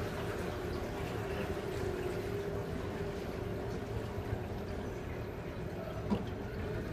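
Small open aluminium boat motoring slowly along a canal: a steady motor hum over water sloshing around the hull, echoing under a low bridge. A small knock about six seconds in.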